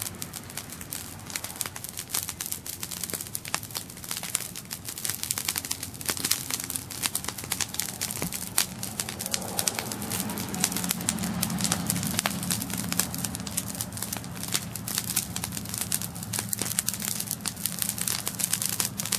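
Cut bush burning in an open fire, with dense crackling and popping. A low rumble from the flames swells about halfway through.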